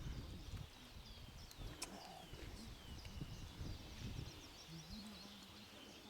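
Faint outdoor ambience: a bird calling with a run of short, falling whistled notes, over low, irregular rumbling bumps.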